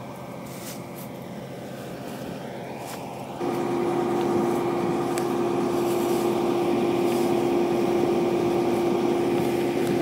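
A combine's engine running steadily. About three and a half seconds in it steps up sharply to a louder, steady drone with a strong whine.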